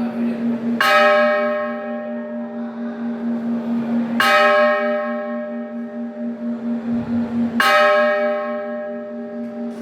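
Temple bell struck slowly, three strokes about three and a half seconds apart. Each stroke rings on into the next over a steady, wavering low hum.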